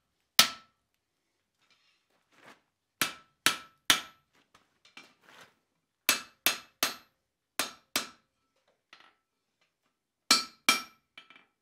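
Hand hammer striking a hot steel bar on the anvil face in groups of two to four blows with short pauses, each blow giving a sharp clank with a brief metallic ring, and a few lighter taps in between. The blows upset the bar to open a slit hole further.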